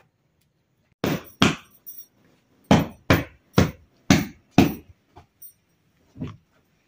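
Pillows and bedding being slapped and patted by hand to fluff them: two sharp thumps about a second in, then five more at about two a second, and a few softer ones near the end.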